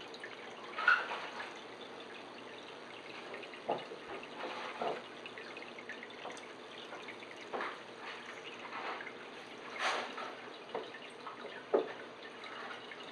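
Aquarium water trickling and dripping steadily, with a handful of short, sharp knocks or splashes scattered through.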